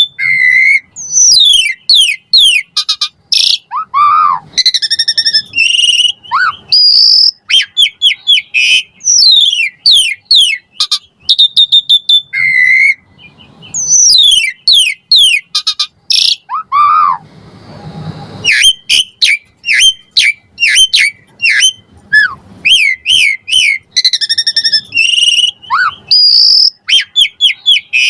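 Pied starling (jalak suren) singing a loud, long, varied song full of mimicked calls. It runs rapid series of falling whistles into chattering phrases, with a brief pause about two-thirds of the way through.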